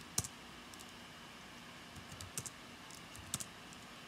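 A few sparse keystrokes on a computer keyboard, entering numbers and pressing Enter: one click near the start, a few in quick succession about two seconds in, and one more near the end.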